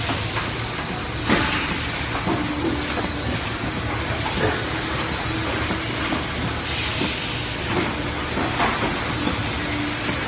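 Lamp-cover blow forming machine at work: a steady hiss of air and machinery, with a louder burst of hiss about half a second in and a few clicks.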